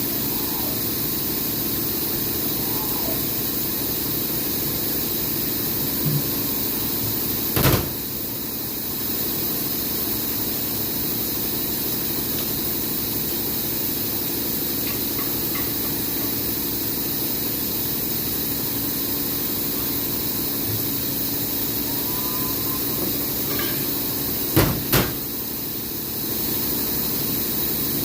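Steady workshop hiss with a low hum under it, broken by a sharp knock about eight seconds in and two more knocks close together near the end.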